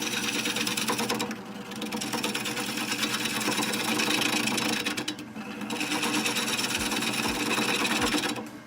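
Wood lathe running with a gouge cutting into the inside of a spinning birch burl bowl, a steady rushing, chattering cut. It eases off briefly twice, about a second in and about five seconds in, as the tool comes off the wood.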